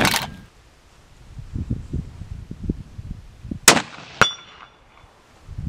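A rifle shot, then about half a second later a sharp metallic clang of the bullet striking a steel target, which rings briefly. A few soft low knocks come before the shot.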